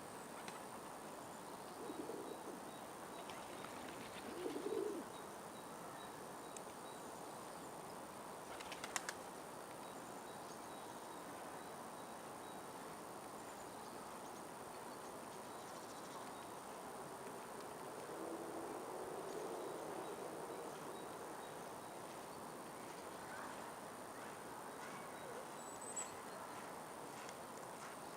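Quiet outdoor background hiss with a few faint bird calls: two short low calls within the first five seconds and a brief high chirp near the end, plus one sharp click about nine seconds in.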